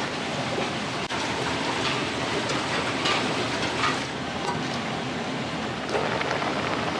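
Steady rushing hiss of a working restaurant kitchen, with scattered light clinks and knocks.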